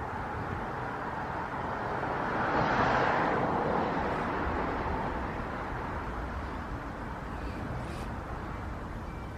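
A car passing by, rising to a peak about three seconds in and then fading away, over a steady low rumble of wind on the microphone.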